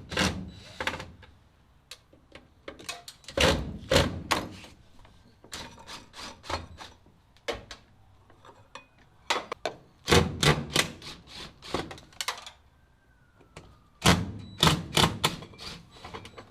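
Four bursts of rapid clicks and knocks, a few seconds apart: tools and hardware being handled against the truck's metal door pillar.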